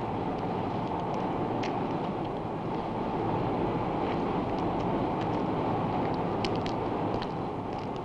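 Electric arc furnace running: a steady, dense roar with scattered sharp crackles.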